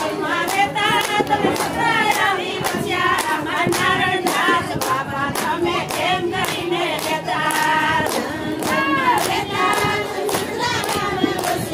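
A group of women singing a devotional song together in unison, clapping hands in time about twice a second.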